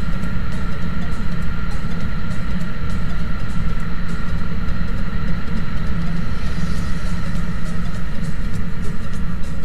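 Motorcycle engine running steadily at cruising speed, with wind and road noise on the bike-mounted camera's microphone.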